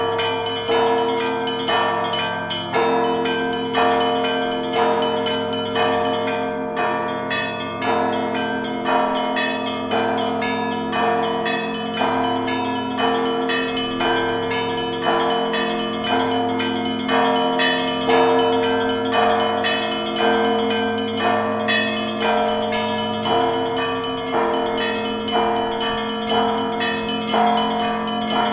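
Russian church bells ringing a continuous peal (zvon): clusters of strikes about once a second over the long, steady ring of the larger bells.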